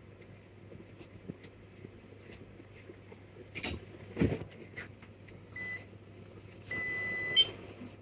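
A couple of knocks from tools being handled on the bench, then two electronic beeps of the same pitch from a digital multimeter: a short one, then a longer one lasting under a second. The meter is being readied to test the freshly lifted pad for a short to ground.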